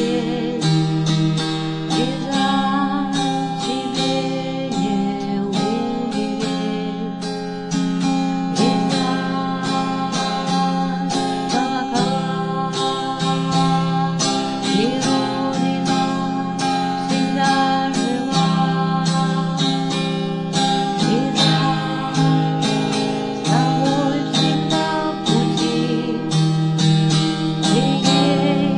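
Music: acoustic guitar strummed in a steady rhythm, accompanying a song.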